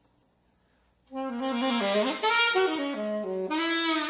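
About a second of near silence, then a solo alto saxophone comes in loudly, playing an unaccompanied free-jazz phrase with notes that bend and swoop up and down.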